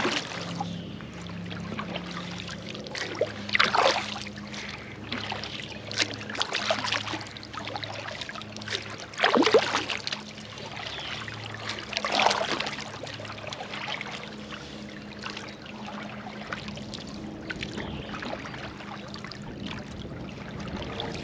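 Double-bladed kayak paddle strokes splashing in lake water, a splashy stroke every two to three seconds, with water trickling and dripping off the blades between strokes. The strokes are lighter in the second half.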